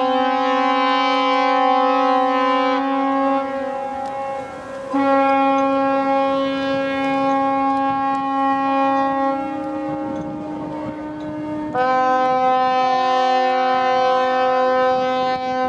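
Ships' horns sounding long, loud blasts, several horns at slightly different pitches overlapping. The sound dips briefly about four seconds in, and a fresh blast starts about twelve seconds in.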